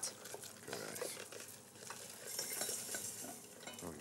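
A spoon stirring a warm, sticky mixture of melted honey, coconut oil and almond butter in a pot on the hob, scraping and clinking against the pot, with a soft hiss for about a second midway.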